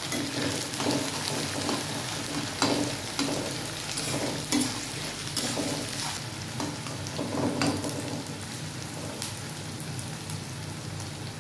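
Sliced onions and whole spices sizzling in hot oil in a metal kadhai, stirred with a spatula that scrapes and clicks against the pan now and then.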